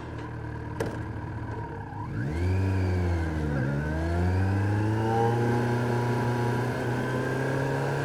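Kawasaki Z900's inline-four engine running, revving up sharply about two seconds in. The revs dip briefly a little before halfway, then climb steadily as the bike accelerates.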